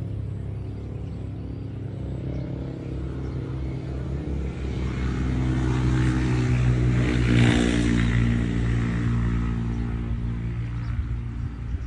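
A motor vehicle's engine running and passing by: a steady low hum that grows louder to a peak about two-thirds of the way through, then fades.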